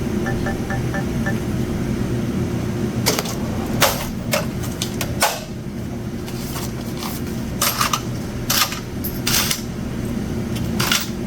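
Cash register at a checkout: five quick key beeps near the start, then from about three seconds in a run of sharp clicks and clinks of the cash drawer and coins being handled while change is counted out, over a steady low hum.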